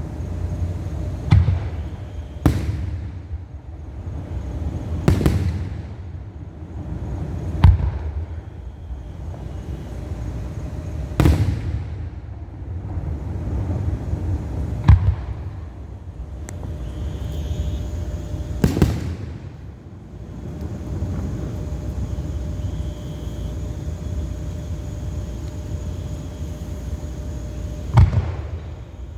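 Fireworks shells bursting in sharp booms at irregular intervals, about eight in all, over a steady low rumble.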